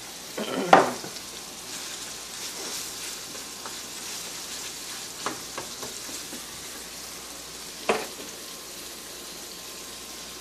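Ground meat sizzling in a frying pan on a gas burner while it is stirred with a spatula. A few sharp knocks stand out, the loudest about a second in and another near eight seconds.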